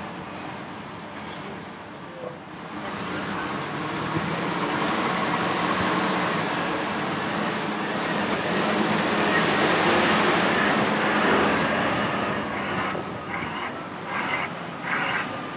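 Heavy machinery working: a large diesel excavator's engine and hydraulics running hard as it slews and digs, together with a loaded 40-tonne Caterpillar 740B articulated dump truck driving off. The machine noise builds about three seconds in, with a high whine rising and then fading, and ends with a run of knocks and scrapes as the bucket bites into soil and rock.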